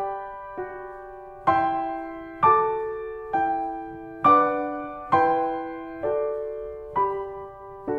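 Background music: a slow piano melody, single notes struck about once a second, each ringing and fading away.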